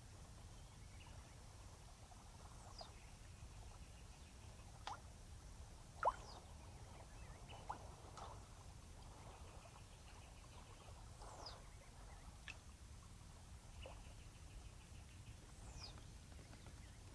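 Faint ambience: a steady low hum with scattered short squeaks sliding downward and a few soft taps, the sharpest tap about six seconds in.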